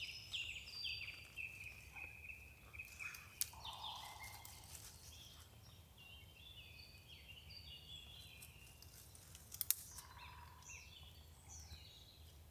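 Faint small birds chirping in quick runs of short falling notes, with two sharp clicks, one about a third of the way in and a louder one near three quarters.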